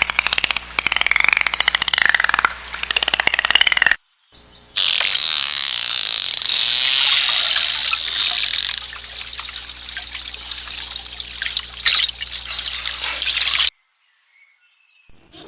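Dolphin clicks and whistles: rapid trains of clicks under rising and falling whistles for about four seconds. After a short break comes a longer stretch of hissy, watery noise with fainter whistles. The sound stops a second or two before the end, and then chirping starts.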